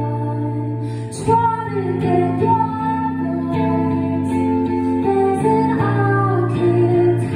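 Live music: a woman singing over chords played on a Stratocaster-style electric guitar, the chords changing a little over a second in and again near the end.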